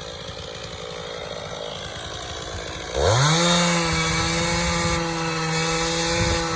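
Stihl MS460 two-stroke chainsaw idling low, then revved up sharply about three seconds in and held at a steady high speed, bucking an elm log into firewood.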